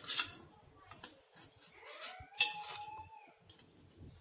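Knife cutting through steamed dough dumplings and scraping on a stainless steel plate in a few short strokes, the loudest about two and a half seconds in. A faint tone rises and then holds for about a second around two seconds in.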